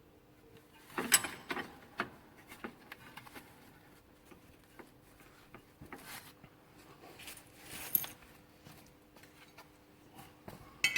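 Hand tools clinking and knocking against car suspension parts: scattered light clicks and rattles, with a louder cluster about a second in.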